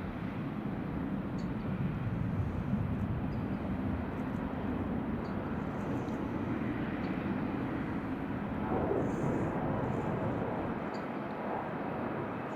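Jet airliner's engines running steadily, a low noise that swells briefly about nine seconds in.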